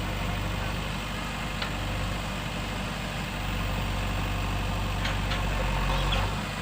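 Diesel engine of heavy earthmoving machinery running steadily, with a few faint clicks. The engine note grows a little louder toward the end, then drops back.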